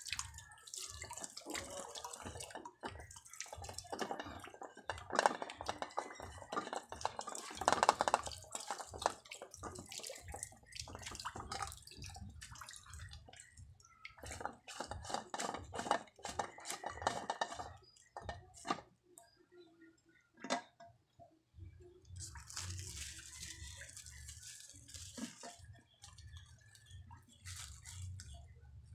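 Clear plastic water-filter housing being turned and handled on its cap, with a run of plastic clicks and scraping and water dripping and splashing.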